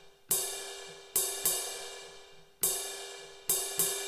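Alesis SR-16 drum machine's "soft ride" cymbal sample, struck six times in an uneven pattern, each hit ringing on and fading slowly.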